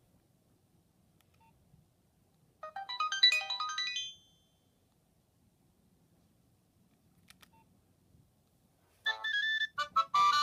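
Nokia 3510 ringtones played through a Nokia 7100 Supernova's loudspeaker. First comes a quick rising run of electronic notes, about a second and a half long, then a single click, and about nine seconds in a new ringtone melody begins.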